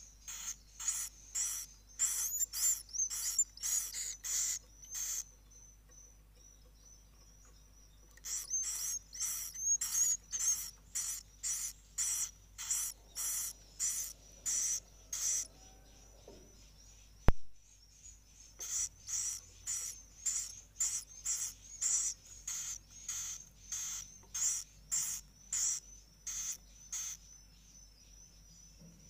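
Swiftlet calls: trains of short, high, rhythmic chirps, about two a second, broken by two pauses, over a steady high whine. A single sharp click sounds a little past the middle.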